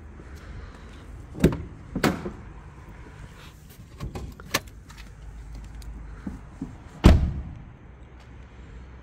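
A Volvo XC60's driver's door is opened with two sharp clicks. A few lighter clicks follow as the bonnet release lever under the dash is pulled, and the door is shut with a solid thump about seven seconds in.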